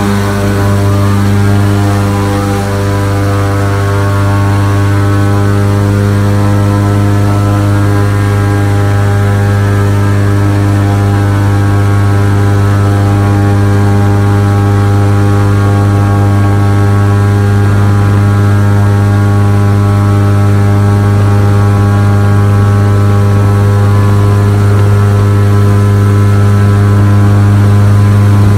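Airboat's engine and air propeller running at a steady pace: a loud, constant drone with a strong low hum.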